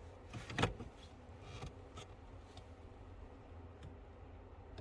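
Faint handling noises: one sharp click about half a second in and a few lighter taps, over a low steady hum.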